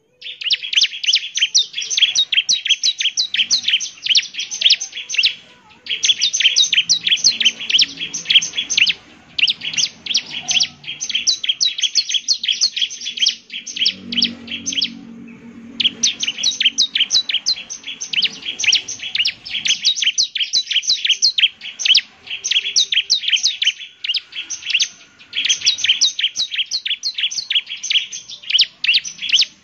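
Bar-winged prinia (ciblek) singing energetically: fast runs of repeated high, sharp notes, each run lasting a few seconds and broken by short pauses.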